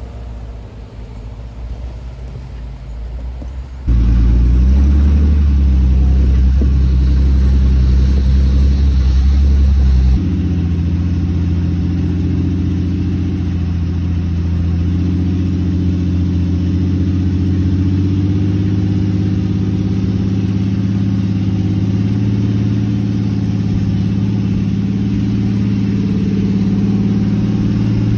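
4x4 engines on a snowy trail. First a Jeep Wrangler's engine is heard from outside as it crawls over rocks. From about four seconds in comes the louder, steady drone of an engine heard from on board a 4x4 driving slowly over snow, and its tone shifts suddenly about ten seconds in.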